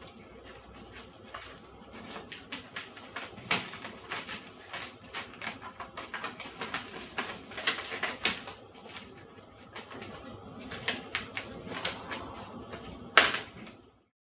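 Cling film being pulled off the roll and stretched around a leg, an irregular run of crinkling crackles with one louder crack near the end.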